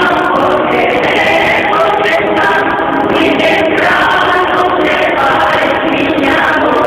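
A parish choir singing a hymn together, with long held notes.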